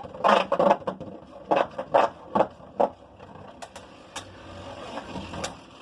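Plastic Beyblade tops and launchers being handled: a few short rattling, scraping rasps, then several sharp plastic clicks.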